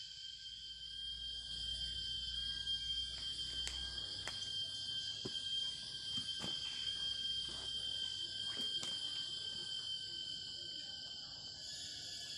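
Night insects chirring in a steady, high-pitched chorus, with a few scattered short clicks and knocks.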